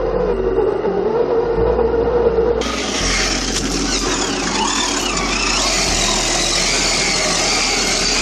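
Electric motor and gear whine of a 1/10 scale RC crawler truck, steady in pitch. About two and a half seconds in it gives way to an RC crawler, a Redcat Gen8, driving through muddy water: its motor whine rises and falls with the throttle over the splashing and churning of the wheels in mud.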